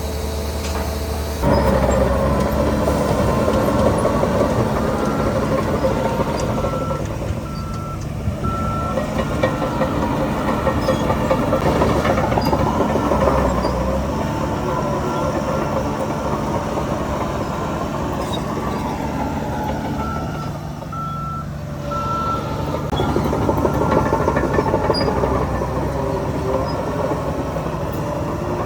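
Heavy diesel construction machinery running steadily, with a reversing alarm beeping about twice a second in two spells, about five seconds in and again about twenty seconds in.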